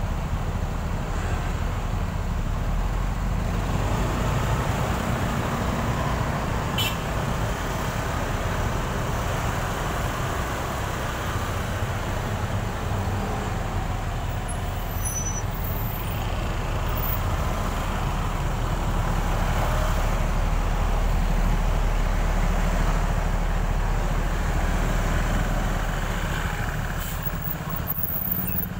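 Steady rumble of dense, slow road traffic (motorbikes, cars and heavier vehicles) heard from a motorcycle moving through it.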